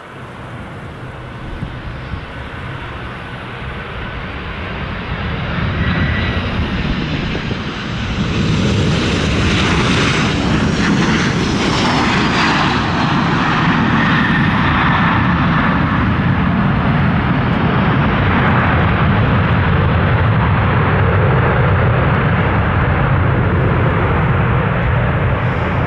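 Narrow-body twin-jet airliner's engines landing in strong wind. The roar builds over the first several seconds, and a whine falls in pitch as the aircraft passes about ten to twelve seconds in. A steady loud roar then holds.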